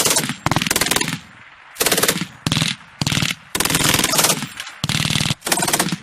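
Machine gun firing about eight short bursts of rapid automatic fire, separated by brief pauses.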